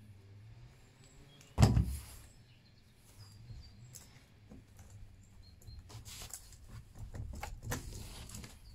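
Handling noises from taking apart a Stihl MS 231 C chainsaw: one solid knock about a second and a half in, then, in the second half, a run of light clicks and rattles as the guide bar and chain are worked loose and lifted.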